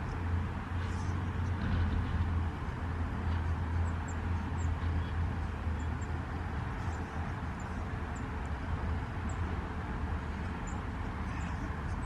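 Faint, short, high chirps of small birds every second or two, over a steady low rumble such as distant traffic.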